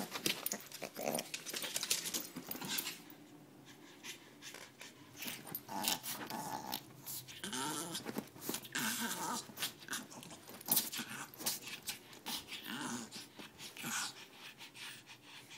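A small Chihuahua-pug mix dog growling in play as it wrestles with a hand, with growls that come and go among steady rustling and scratching on a fabric blanket.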